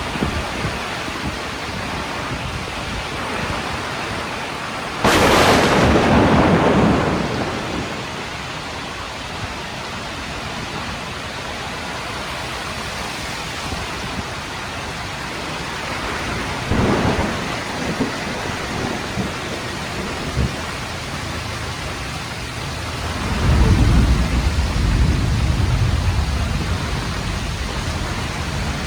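Heavy rain pouring steadily in a windstorm. About five seconds in, a sudden loud burst fades over roughly two seconds. A shorter, weaker one comes about halfway through, and a low rumble swells near the end.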